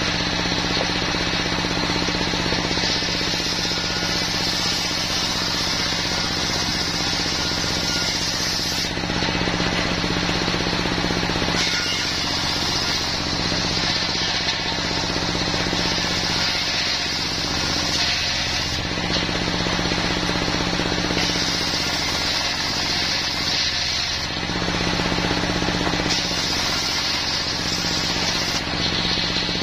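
Circular saw blade of a mobile sawmill ripping a plank of wadang timber lengthwise, a high cutting hiss in long stretches that twice drops away briefly between passes. Under it the single-cylinder diesel engine that drives the saw runs steadily.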